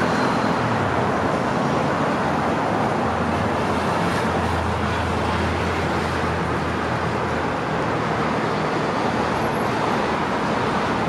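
Steady road traffic noise: vehicles passing, with a low rumble swelling from about four to seven seconds in.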